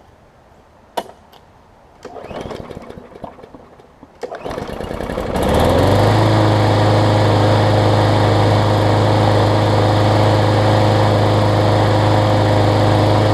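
Push lawn mower's small single-cylinder engine being started: after a click and some handling noise, it catches about four and a half seconds in, rises quickly in pitch and settles into a loud, steady run. It runs on its freshly cleaned carburetor, with the blade now turning freely.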